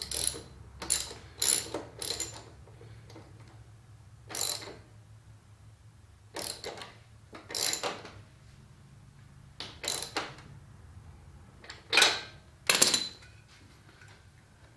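Socket ratchet clicking in short bursts with pauses between, a dozen or so, the loudest near the end, as a new spark plug is tightened into a Honda HRX217 lawn mower's engine.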